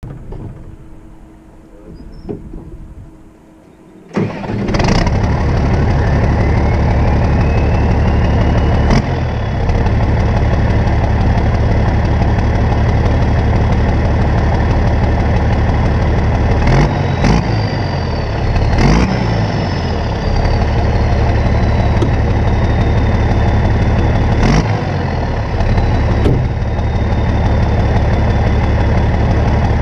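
Massey Ferguson 8130's straight-piped Perkins 1006.6 six-cylinder turbo diesel starting about four seconds in, then running steadily at idle. A turbo whine rises over the first few seconds after it catches, and later eases slowly lower.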